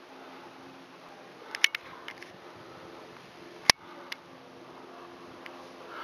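A handful of sharp clicks and taps over a faint steady hum: a close pair about a quarter of the way in, and the loudest one a little past the middle.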